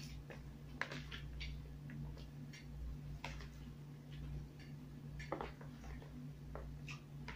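Quiet eating sounds: scattered light clicks and taps of spoons and forks against plates and a plastic food container, over a steady low hum.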